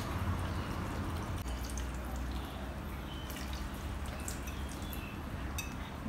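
Water pouring steadily from a glass bottle into a plastic blender jar full of chopped leaves.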